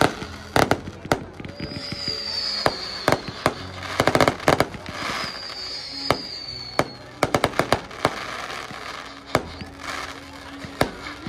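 Fireworks going off: clusters of sharp bangs and cracks, with two high whistles that each fall slightly in pitch.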